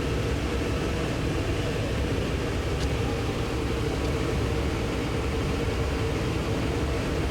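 Citizen L20EIX Swiss-type CNC lathe running with a steady hum and a constant mid-pitched tone, with one faint tick about three seconds in.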